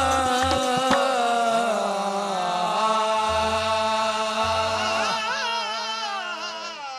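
Qawwali music with long held notes and a wordless sung melodic line whose pitch wavers. It grows quieter toward the end.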